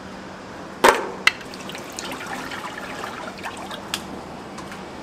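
Scissors snip open the plastic spout seal of a square tin of cooking oil, with a sharp click about a second in and a second one just after, followed by light trickling of liquid and small ticks. There is one more click near the end.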